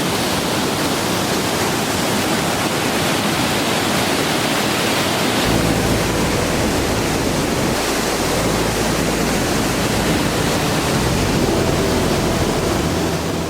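Steady roar of rushing water from a waterfall or rapids, a loud even wash of sound with no breaks.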